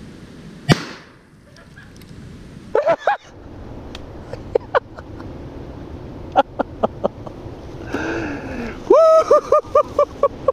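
A single shotgun blast about a second in, then scattered turkey clucks and putts, and near the end a quick run of about six turkey yelps.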